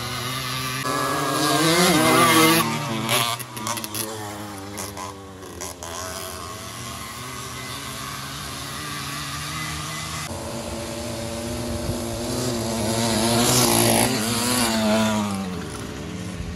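Small two-stroke engines of racing motorized bicycles and mopeds running at full throttle, with a steady engine drone throughout. Two louder passes come about two seconds in and again near the end, the pitch sweeping as each machine goes by.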